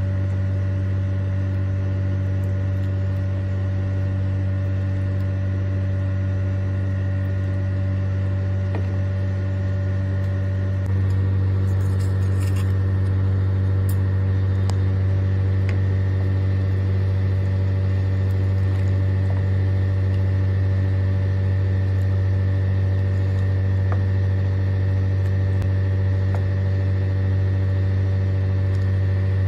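Steady low electrical hum with several overtones, getting a little louder about eleven seconds in, with a few faint light clicks on top.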